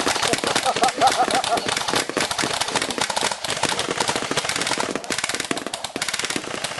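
Several airsoft guns firing rapidly at once, a dense, continuous clatter of shots.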